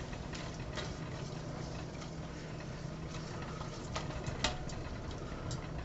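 Pans simmering quietly on the hob, a steady low bubbling hiss, with a few light clicks of a utensil against a stainless steel saucepan as the sauce is stirred.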